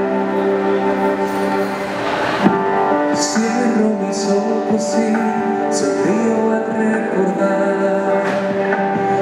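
Instrumental break of a Spanish-language love-song backing track: sustained keyboard chords, with a light percussion beat, about one stroke a second, coming in about two and a half seconds in.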